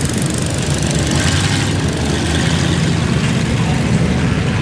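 Engines of lifted mud trucks idling and running steadily, a constant deep engine sound with no revving.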